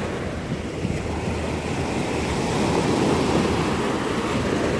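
Small surf breaking and washing up onto a sandy shore, a steady rushing wash that swells about halfway through.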